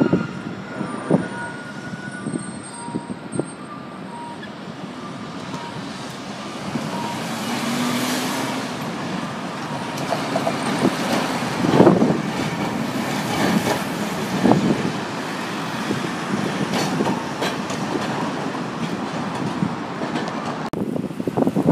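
Traffic at a busy intersection: buses, trucks and cars passing, with a Tosa Electric Railway streetcar rolling over the tram tracks. Its steady noise swells after a few seconds, with a few sharp knocks a little past the middle.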